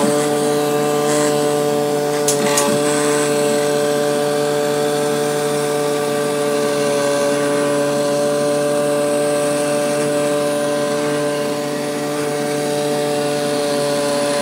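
DRD Rubber die-making rubber-cutting machine running as its cutting head works across a rubber sheet: a steady mechanical hum made of several unchanging tones, with a few sharp clicks about two and a half seconds in.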